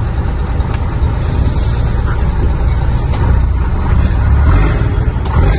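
Scania 124 truck's diesel engine running with a steady low rumble, heard from inside the cab.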